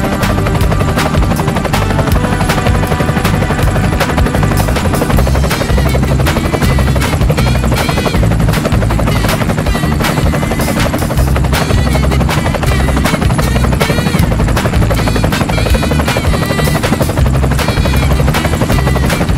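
Helicopter rotor sound with music over it. From about six seconds in a rising-and-falling electronic tone repeats over and over.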